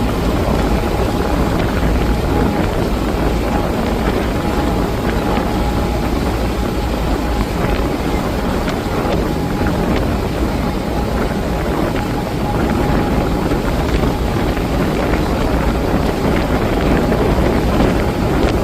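Steady rush of sea water and wind from a moving ferry, with the low drone of the boat's engine and a faint steady high whine; wind buffets the microphone.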